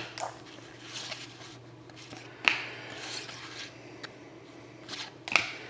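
Trading cards being handled and slid over one another, with three sharp clicks about two and a half seconds apart.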